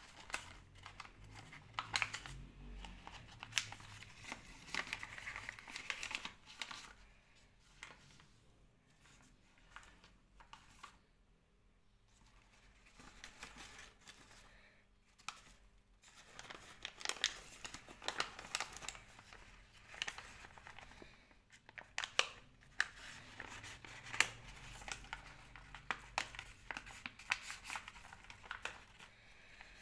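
Paper rustling and crinkling in irregular bursts as a sheet of paper is folded and its creases pressed down by hand, with a quieter spell in the middle.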